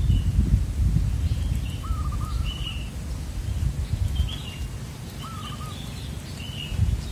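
Zebra dove (perkutut) cooing its rolling song twice, about two seconds in and again about five seconds in. Short high chirps from another small bird come in between, over a steady low rumble.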